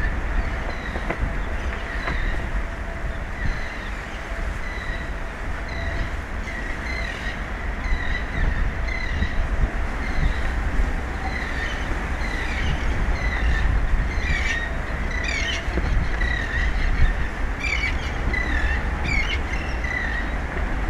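Birds giving short, repeated chirping calls that grow busier in the second half, over a steady low rumble of wind.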